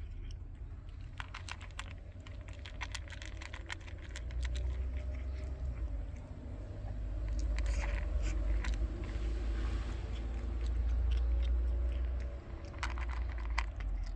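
A cat chewing and crunching its food, a quick uneven series of crisp clicks, over a steady low rumble.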